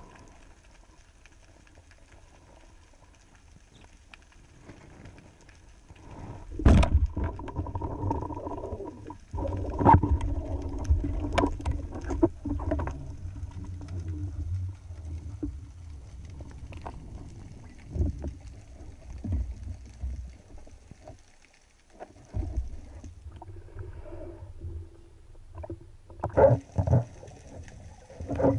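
Muffled underwater water rush with a low rumble. Irregular sharp knocks come from the speargun and its mounted camera being handled and bumped as the diver moves, loudest about seven and ten seconds in.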